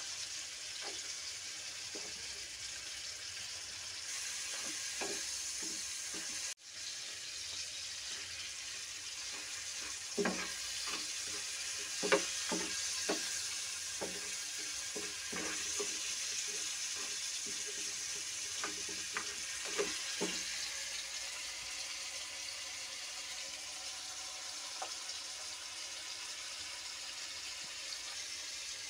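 Crabs and vegetables frying in hot oil in a pan, a steady sizzling hiss. From about ten to twenty seconds in, a run of sharp knocks and scrapes as the spatula stirs the crabs against the pan.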